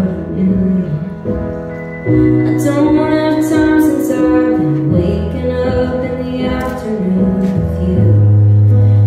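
Live band music: a sung vocal over keyboard and electric bass, with the bass holding long low notes. The band grows louder and the singing line comes in about two seconds in.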